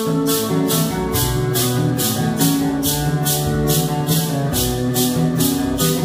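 Santo Daime hymn sung by a group over acoustic guitars, with many maracas shaken together on the beat, about two and a half shakes a second.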